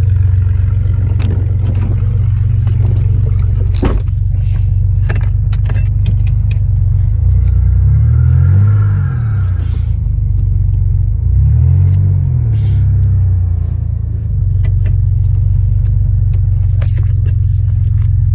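Chevrolet truck engine running at low, steady revs while driving slowly, revving up and easing back down twice, at about 8 and 12 seconds in. Scattered clicks and rattles sound over it.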